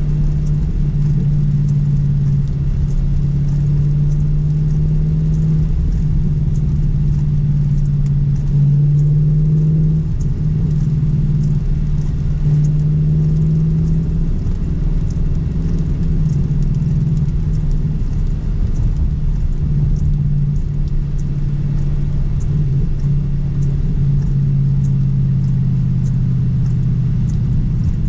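Roush Mustang's engine and road noise heard from inside the cabin while driving, a low steady drone whose pitch drifts gently up and down with speed.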